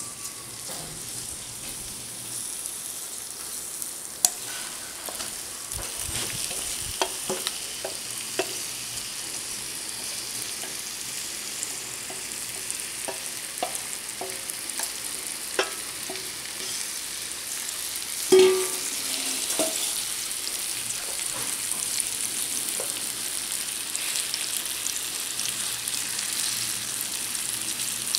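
Raw banana slices coated in spice paste sizzling as they shallow-fry in hot oil in a nonstick pan. The sizzle grows louder a few seconds in as more slices go into the oil. Scattered clicks and knocks run through it, with one louder knock about 18 seconds in.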